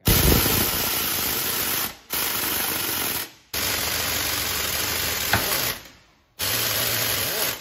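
Large air impact wrench hammering in four bursts with short pauses between them, turning the forcing screw of a hub puller to draw a wheel hub off a semi-trailer axle.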